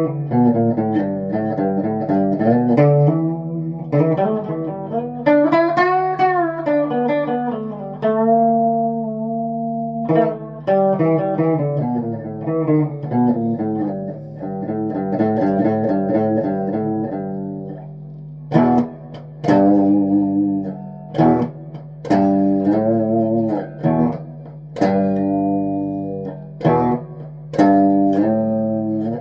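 Les Paul-style electric guitar played solo: sustained melodic notes, with a bent note about six seconds in. From about two-thirds of the way through come short, choppy chord stabs with brief gaps between them.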